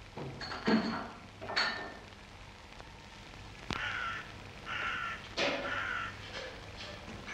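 Crows cawing, about half a dozen harsh caws: three in the first two seconds, then three more in quick succession about four to six seconds in.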